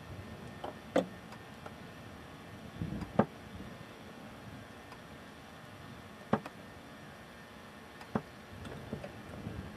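Burning black spruce in a wildfire crackling, with four loud sharp pops a few seconds apart and fainter ones between, over a steady low rush, heard from inside a fireproof camera box.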